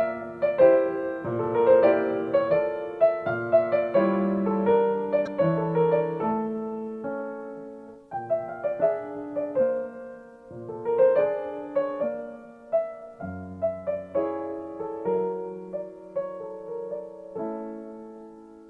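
Background piano music: phrases of struck notes that ring and fade, briefly dropping away about eight seconds in and growing softer near the end.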